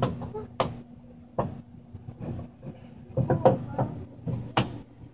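A series of sharp clicks and knocks as a small lidded box is handled on a wooden shelf, its lid opened and knocked shut, with a steady low hum underneath.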